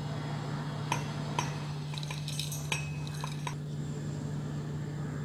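Whole roasted spices being tipped from a glass bowl into a steel grinder jar: a handful of light clinks and rattles of glass, seeds and chillies against metal, clustered between about one and three and a half seconds in, over a low steady hum.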